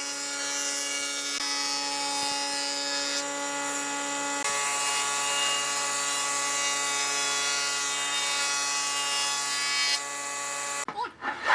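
An electric power tool running steadily, a motor whine over a hiss, shifting slightly in tone a few seconds in, then cutting off near the end with a few knocks of wood.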